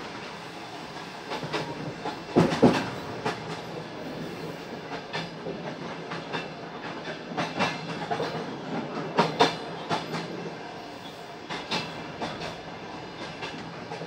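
Train wheels clattering over rail joints on a moving passenger train: a steady rumble with irregular sharp knocks, the loudest pair about two and a half seconds in.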